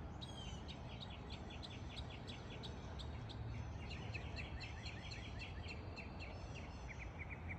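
Small birds chirping: many quick, short repeated notes, with a rapid trill near the end, over a faint low background hum.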